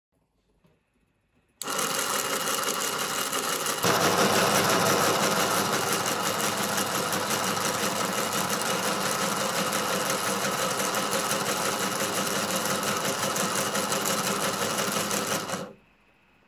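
Electric motor of a 3D-printed linear actuator running, driving the gearbox and M8 threaded rod to push the piston through its full 100 mm stroke: a steady mechanical whir. It starts about a second and a half in, grows louder a couple of seconds later, and cuts off suddenly near the end as the piston reaches the end stop.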